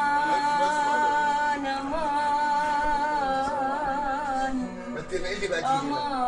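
A woman singing Arabic song, holding long high notes with a wavering vibrato and ornamental turns, over steady accompaniment tones. About five seconds in she breaks off briefly, then takes up another long held note.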